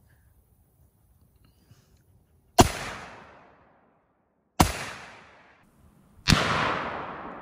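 Three single rifle shots from a short AR-style semi-automatic gun, fired one at a time about two seconds apart, each followed by an echo that trails off for about a second. The first comes about two and a half seconds in.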